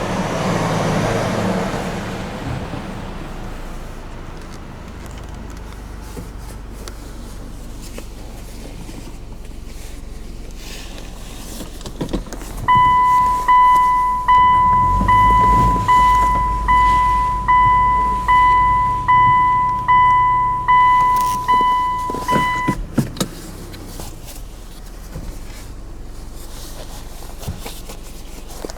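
A vehicle's noise fades away over the first few seconds. About twelve seconds in, an electronic warning chime sounds about fifteen times, roughly one and a half a second, each tone dying away, over a low rumble, and stops with a click about ten seconds later.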